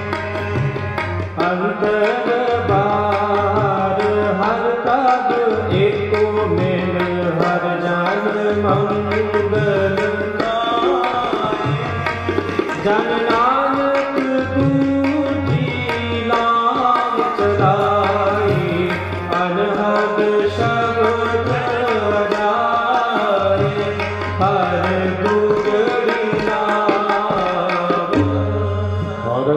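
Sikh kirtan music: tabla playing a steady rhythm under a harmonium melody.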